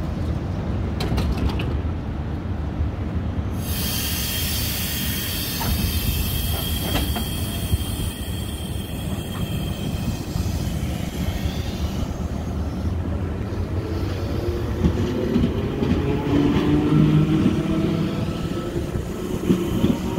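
V set double-deck electric train running past the platform: a steady rumble of wheels on rail, with high squealing and hissing tones from about four to ten seconds in. Near the end a motor note rises slowly in pitch as the train moves off and gathers speed.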